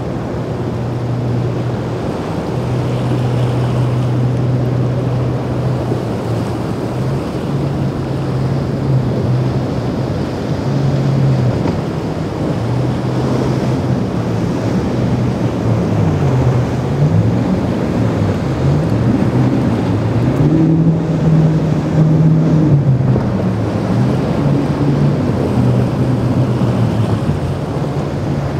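Outboard motors of powerboats running through rough inlet chop, the engine note rising and falling in pitch over the second half, with water rushing off the hulls and wind on the microphone.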